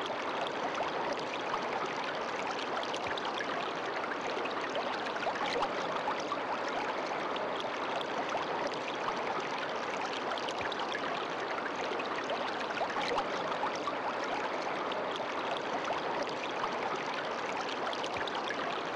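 Steady sound of a running stream, water flowing and trickling without a break.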